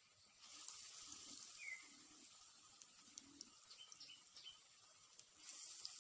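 Faint sizzling and crackling of gram-flour batter fritters frying in hot oil in a karai, swelling about half a second in and again near the end. A bird gives a few short chirps.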